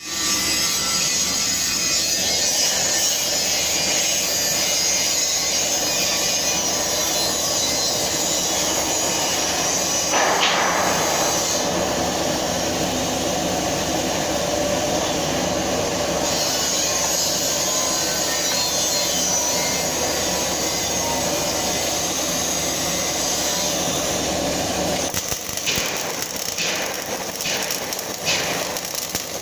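Flux-cored arc welding (FCAW) in the overhead 4G position: the arc gives off a steady crackling hiss. It flares louder briefly about ten seconds in. About 25 seconds in it stops, and scattered sharp clicks follow.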